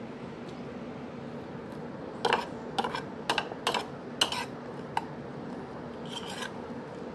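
A metal utensil scraping against a ceramic bowl while scooping up salad and rice, in about six short strokes starting about two seconds in and one more near the end.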